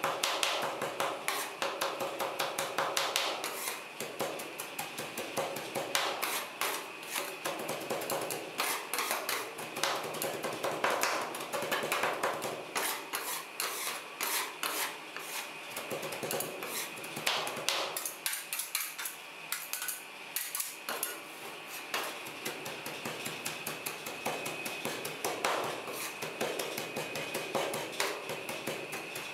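Two metal spatulas chopping a Beng Beng chocolate wafer bar on the steel cold plate of a rolled ice cream pan: rapid, irregular metal-on-metal tapping and scraping that never stops.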